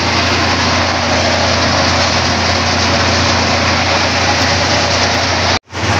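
Diesel truck engine idling steadily, a loud even running noise with a strong low hum. The sound cuts out for a moment near the end.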